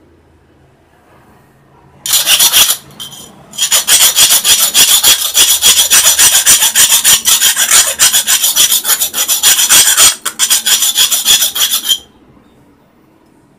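Round metal file rasping back and forth in a drilled hole in a metal exhaust end cap, smoothing the rough edge of the hole. It starts after about two seconds with a short burst of strokes, then runs as rapid, even strokes for about eight seconds before stopping near the end.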